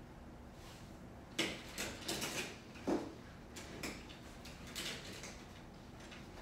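Crossover Symmetry resistance bands being handled at the wall anchor: their handles and clips click and clatter in a quick run of sharp knocks and rattles, the loudest about a second and a half and three seconds in, as the bands are moved to the lower anchor point.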